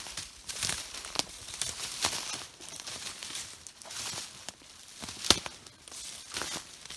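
Footsteps crunching and rustling through brush and forest floor, irregular and uneven, with a sharp snap about five seconds in.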